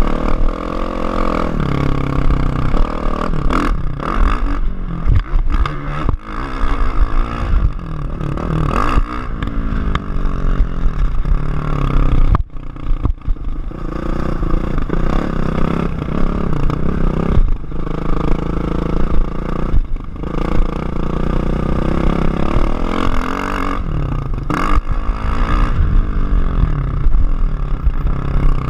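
Kawasaki KX450F four-stroke single-cylinder motocross engine revving up and down hard through the gears, heard close behind its muffler, with the engine note dropping away briefly about twelve seconds in as the throttle is shut. Rattles and knocks from the bike over the rough track.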